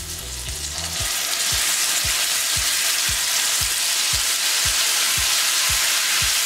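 Serrano chile and tomato salsa frying in hot lard with onion in a skillet: a loud, steady sizzle that jumps up about a second in as the salsa goes into the pan, and holds while it is stirred.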